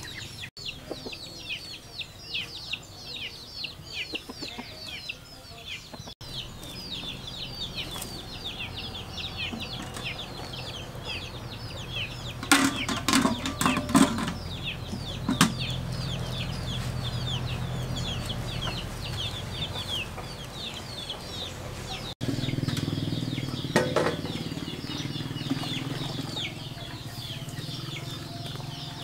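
Chickens cheeping: a rapid run of high, short chirps that each fall in pitch, going on almost without pause. Halfway through there is a burst of clattering knocks, and from about a fifth of the way in a steady low hum lies underneath.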